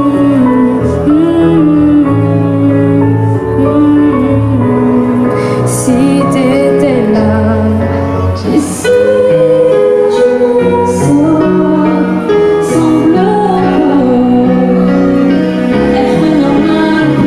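A woman singing a slow, tender pop ballad over a backing track with held bass notes.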